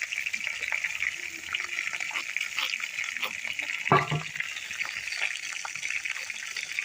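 Fish frying in hot oil, a steady sizzle dotted with crackles. One sharp knock about four seconds in stands out above it.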